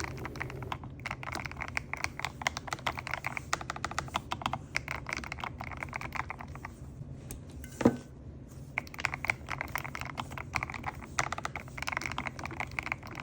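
Fast typing on a mechanical keyboard fitted with silicone keycaps: rapid runs of key clacks. A short pause a little past halfway brings one louder knock before the typing resumes.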